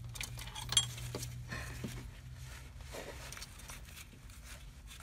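Light metal clicks and clinks of rear drum-brake shoe and spring hardware being handled and fitted onto the backing plate, with one sharper ringing clink about a second in. A low steady hum fades out partway through.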